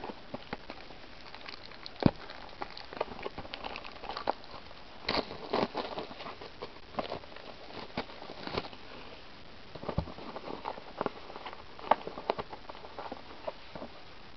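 Plastic shrink-wrap crinkling in short, irregular crackles as it is peeled off a sealed cardboard trading-card booster box, with fingers scratching and picking at the box.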